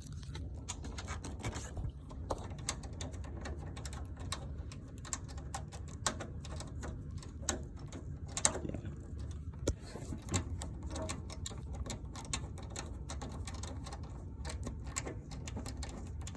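Irregular small clicks and taps of hands fitting a VGA cable connector and turning its thumbscrews, over a steady low hum.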